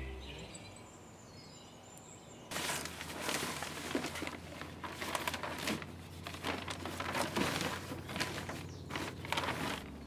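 Black plastic sheeting rustling and crinkling in irregular bursts as it is handled and pressed into a wooden planter box as a liner. It starts suddenly about two and a half seconds in, after a quiet start.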